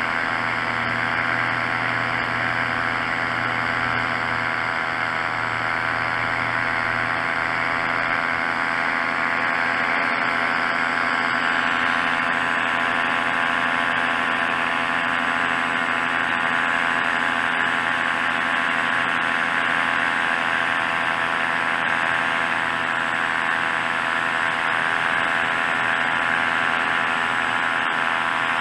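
Tandem paramotor's engine and propeller running steadily in flight: a constant drone made of many evenly spaced tones, its tone changing slightly about ten seconds in.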